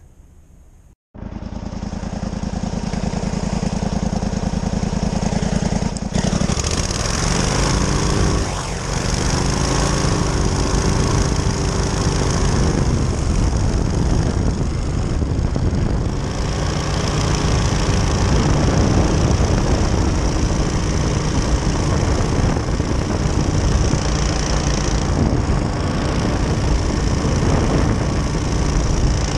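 Powered parachute's engine and propeller running at high power through the takeoff roll and climb-out, starting abruptly about a second in; the pitch shifts a few times between about 6 and 12 seconds in, then holds steady.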